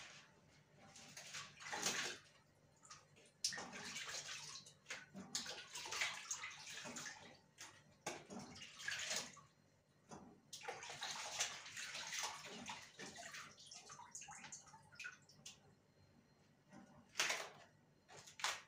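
Water sloshing and splashing in a plastic bowl as thin yufka pastry sheets are dipped in it to wet them and lifted out, in irregular bursts with pauses between.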